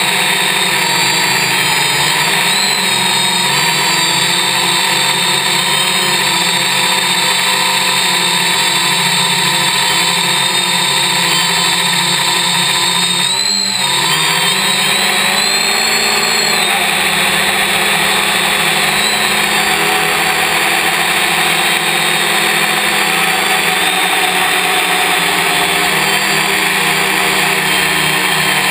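Y6 multicopter's six electric motors and propellers running loudly and steadily: a whine whose pitch drifts up and down as the throttle changes. About 13 seconds in, the pitch briefly drops and then climbs back.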